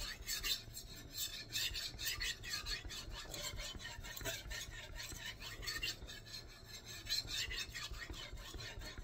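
A Nitro-V steel gyuto knife's edge stroked back and forth on a fine 5000-grit Shapton Kuromaku whetstone, a rasp with each pass, repeated steadily: the polishing stage of sharpening, after the coarse stones.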